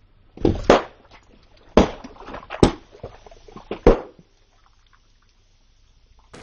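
Liquid-filled balloons bursting one after another under a car tyre: several sharp pops, each followed by the splash and slosh of coloured liquid spilling onto concrete.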